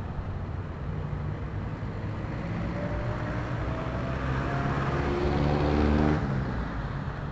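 A motor vehicle engine running, growing louder to a peak about six seconds in and then dropping as the vehicle passes close by.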